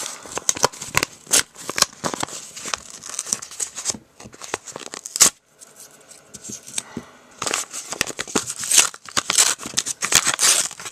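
Paper mail wrapping being torn open and crumpled by hand: rapid crackling and crinkling of paper, with a quieter pause about halfway through.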